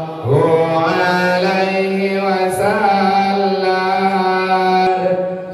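A man's voice chanting salawat, devotional Arabic praise of the Prophet, in a mournful style with long held notes. The pitch swells upward just after the start and again about two and a half seconds in, with a short break for breath near the end.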